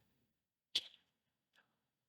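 A sharp click, then a fainter tick a moment later, from handling small tools or laptop parts on the workbench.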